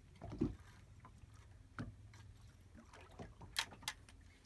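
Small fishing boat at sea: a faint low steady hum, a couple of soft knocks, and a few sharp clicks near the end as the angler works the jigging rod.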